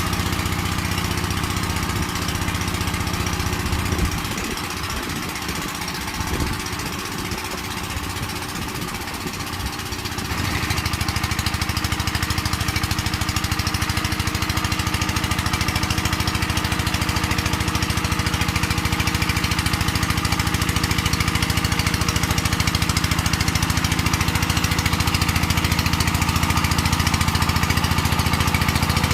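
Walking tractor (power tiller) with a single-cylinder diesel engine running while tilling soil. Between about four and ten seconds in it runs quieter and less evenly, then picks up to a louder, steady run.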